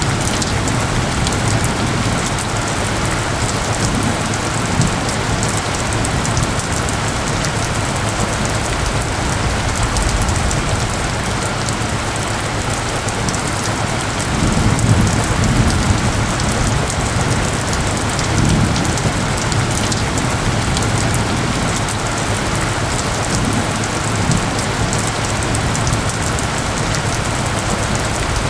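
Steady, heavy rain falling on surfaces, with low rumbles swelling now and then, the strongest about halfway through.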